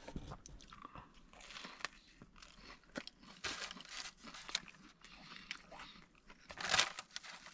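Close-up biting and chewing of a hot dog with onions in a toasted bun: soft, irregular crunches, with one louder crunch near the end.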